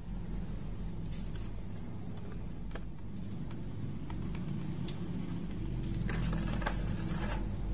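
Steady low background hum with a few faint, light clicks scattered through it.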